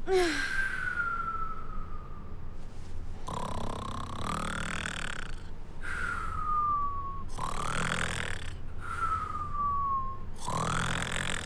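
Cartoon snoring in a repeating cycle: a falling whistle on each breath out, then a rasping, rumbling snore on each breath in, three times over.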